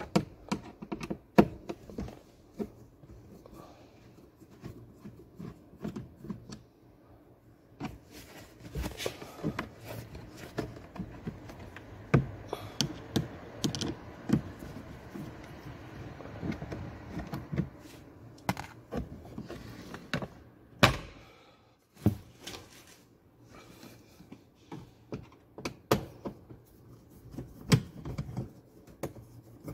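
Scattered clicks, taps and knocks of hard plastic from a car's glove box and the dashboard trim around it being handled and worked loose by hand, with a rustling stretch partway through.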